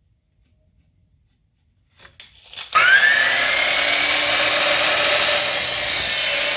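Electric power saw switched on after a couple of clicks: its motor whine rises quickly as it spins up, then runs loud and steady.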